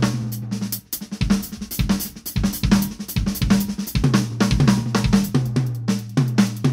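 Drum kit with UFIP cymbals played hard in a heavy rock style: fast strokes on the snare and kick drum with cymbals and ringing toms, pausing briefly about a second in.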